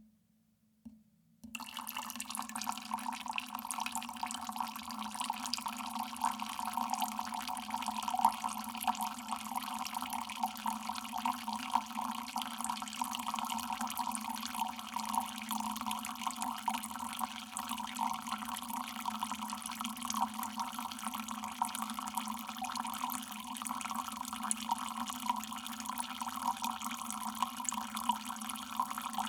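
Water dripping steadily, a dense run of many drops close together, starting about a second and a half in.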